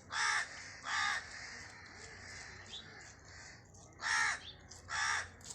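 Four short, harsh animal calls in two pairs, one pair at the start and one about four seconds in, over a faint steady background.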